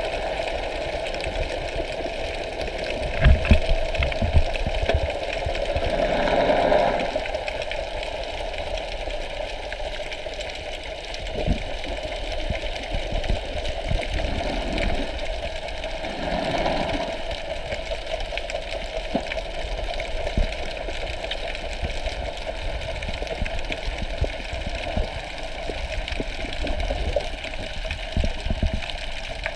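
Muffled underwater sound picked up by an action camera in its housing: a steady hum and low rumble, with a few low thumps about three to five seconds in and two longer swells of noise about six and sixteen seconds in.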